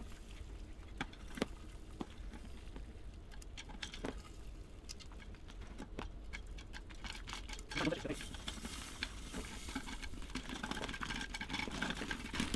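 Popcorn kernels popping in hot canola oil inside a covered steel pot: scattered sharp pops, sparse at first and coming faster toward the end. About eight seconds in there is a brief rustle as the pot is shaken on the burner.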